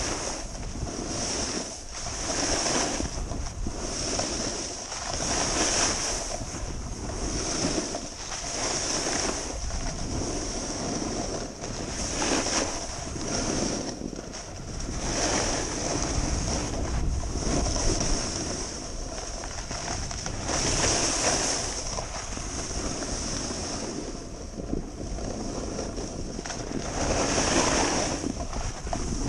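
Snowboard sliding down a groomed piste, its edges scraping over the snow in swells with each turn. Wind rushes over the helmet-mounted microphone.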